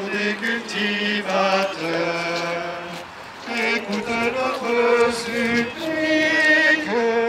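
Voices singing a slow religious chant, moving from one long held note to the next with short breaths between phrases.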